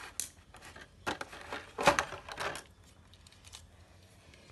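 Clear plastic packaging bag crinkling and hard plastic toy parts clicking as a Transformers Skipjack figure is handled and lifted out of the bag. It comes in a few short bursts of rustling and clatter, the loudest about two seconds in, then softer handling.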